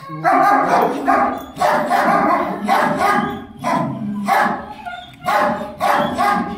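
A dog barking over and over, about one bark a second.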